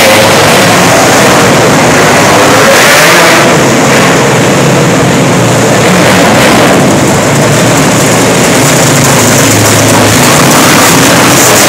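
Engines of several small winged dirt-track race cars running laps together, loud and unbroken, with no let-up as the pack circulates.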